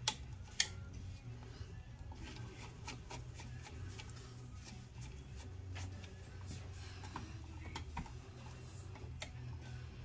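Screwdriver and switch terminals clicking and ticking as wires are worked loose from a three-way light switch. Two sharp clicks come near the start, then faint scattered ticks over a low steady hum.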